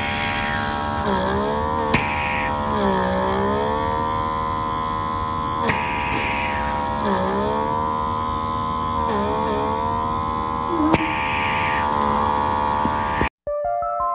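Electric pore vacuum's small suction motor running with a steady buzzing hum, its pitch sagging briefly several times. Near the end it cuts off suddenly.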